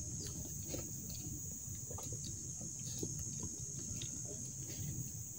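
Steady high-pitched drone of insects, with scattered light clicks and rustles of plastic food containers being handled.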